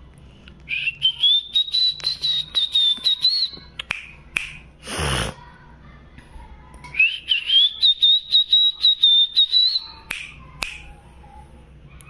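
Cockatiel whistling: two high whistled phrases of about three seconds each, each rising at the start and then held with a slight waver. A short, loud, harsh burst falls in pitch between them.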